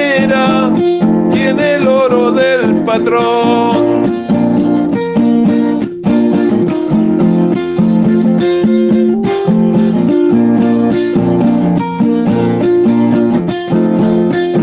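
Song with strummed acoustic guitar. A singing voice ends about three seconds in, and the guitar then plays on alone.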